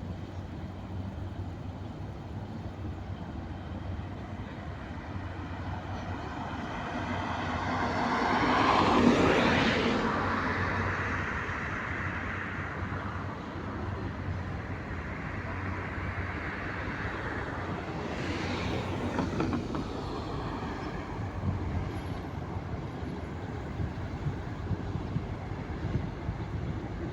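Freight train hauled by a VL11 electric locomotive passing, with a steady rolling rumble and low hum. The sound swells to its loudest about a third of the way in, with a smaller rise about two-thirds in.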